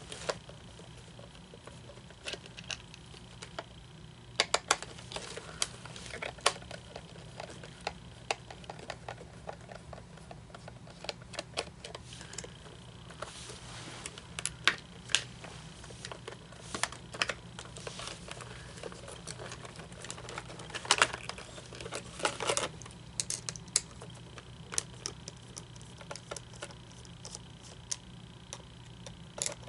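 Irregular clicks and taps of small plastic parts and a hand tool being handled while an animatronic figure's mechanism is taken apart, over a low steady hum.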